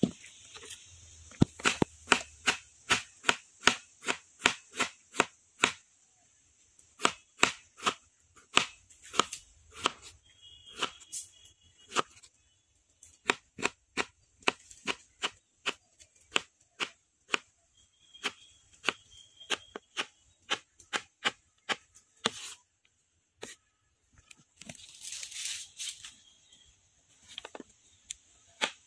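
Kitchen knife chopping a peeled potato into thin strips on a wooden cutting board: a run of sharp knocks, about two or three a second, broken by a few short pauses.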